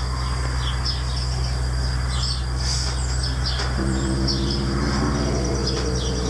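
A domestic cat growls low and drawn-out from about four seconds in, guarding the sparrow it has caught. Small birds chirp throughout.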